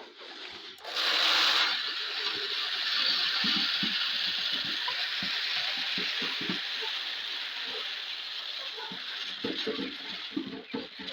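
Dry chicken feed pouring out in a steady rattling stream. It starts loudest about a second in and slowly fades, with short knocks scattered through the second half.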